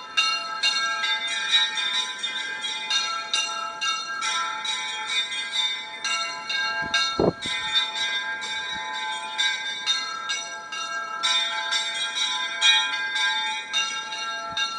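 Church bells ringing a continuous peal, many bells struck in quick succession so their ringing tones overlap. There is a brief low thump about halfway through.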